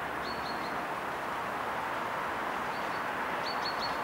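Small bird chirping: short high calls in quick groups of about three, once early and again near the end, over a steady background hiss.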